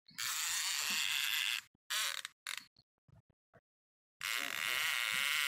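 Fishing reel paying out line with a rapid ratcheting buzz as a hooked sturgeon runs. It goes in two spells of a second or more, with two short bursts and a pause between them.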